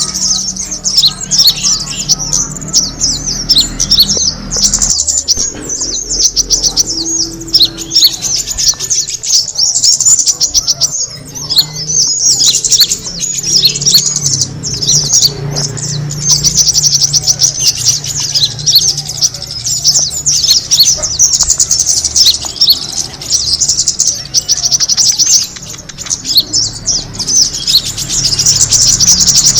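Kemade birds' dense, rapid high-pitched chirping and twittering, the lure call used to attract kemade, with brief lulls twice.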